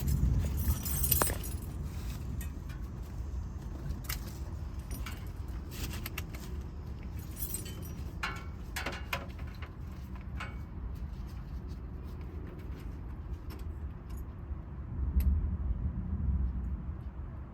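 Light metallic clinks and rattles from tools or parts being handled, over a steady low rumble that swells briefly near the end.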